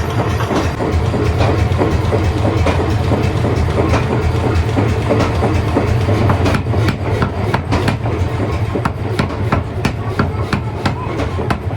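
Heavy-duty hammer forging machinery running, with a steady low hum under a dense run of sharp metallic knocks and clanks that grow more frequent about halfway through.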